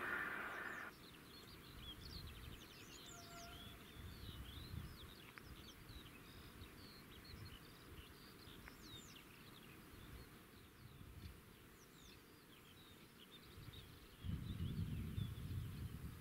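Faint birdsong, many short chirps and whistled glides, in open countryside. A louder sound cuts off suddenly about a second in, and a low rumble starts near the end.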